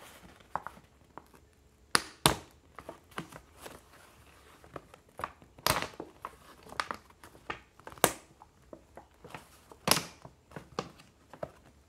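Paper gift bag being pulled open at its stapled top: crinkling and tearing paper, broken by a handful of sharp snaps a few seconds apart as the paper tears free of the staples.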